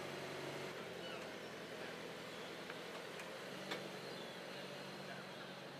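Jaguar E-Pace engine running at low revs: a steady low hum under a hiss, with a couple of faint sharp clicks a little past halfway.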